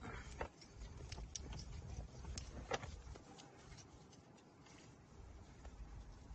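Faint handling noises from a car's dash wiring: scattered small plastic clicks and rustling as a video cable's connector is plugged in, the clearest click close to three seconds in.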